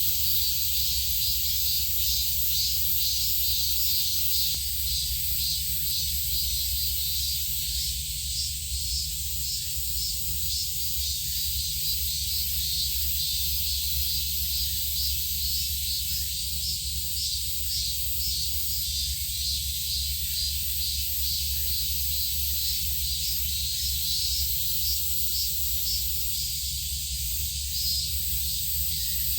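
Steady high-pitched insect chorus, a dense pulsing buzz, over a constant low rumble.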